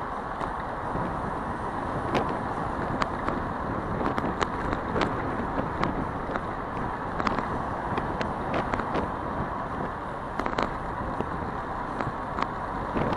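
Bicycle riding along a city street, heard from the bike: a steady rush of wind and road noise, with frequent short sharp clicks and knocks.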